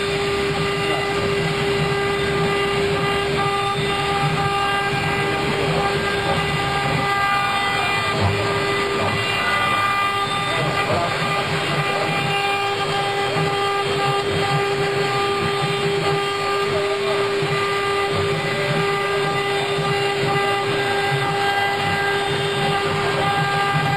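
CNC router spindle running at a constant high whine while its bit carves a relief into wood, with an uneven rasping of the cut underneath.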